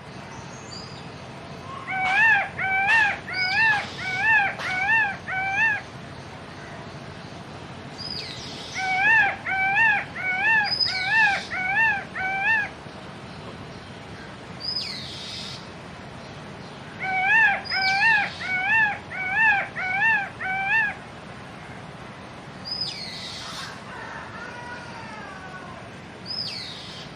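Peacock calling in three bursts of rapid honking calls, about seven short calls to a burst, each burst a few seconds long. Fainter high calls that slide downward sound between the bursts.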